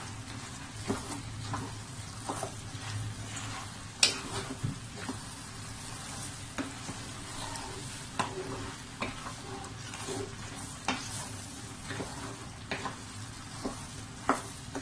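Wooden spoon stirring diced potatoes, carrots and minced chicken in a stainless steel pot over a steady sizzle of the food cooking. The spoon knocks against the pot irregularly, the loudest knock about four seconds in.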